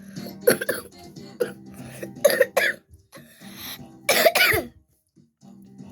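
A person coughing several times in short bursts, the loudest about four seconds in, over faint game music.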